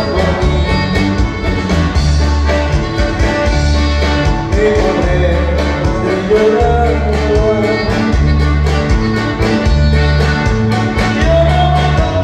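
Live dance music from a band, played loud through PA loudspeakers, with a heavy bass line, a steady beat and a melody above it.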